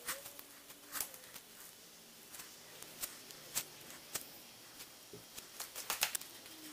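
Scattered soft taps and crackles from resin being worked into chopped strand fiberglass mat laid over a small mold, with a short cluster of louder taps near the end.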